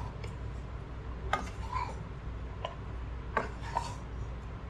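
Wooden spatula knocking and scraping against a nonstick pan while turning over cooked biryani rice, a handful of light, irregular clicks over a steady low hum.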